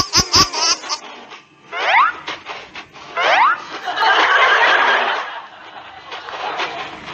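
Studio audience and contestants laughing, with two short rising whistle-like sweeps about two and three seconds in, then a swell of crowd noise.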